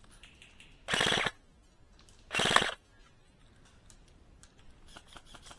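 Airsoft electric gun, a Double Bell BY-810s replica, firing two short full-auto bursts of rapid clicks about a second and a half apart.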